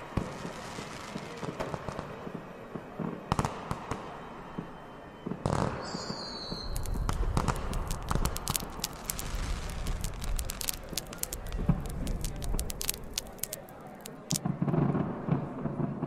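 Fireworks exploding: scattered cracks and bangs, a brief whistle about six seconds in, then a dense run of crackling bursts over a low rumble for several seconds.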